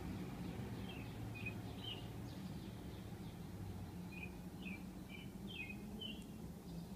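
A bird chirping outdoors: a series of short, high chirps, about nine in two loose groups. Under them runs a steady low hum.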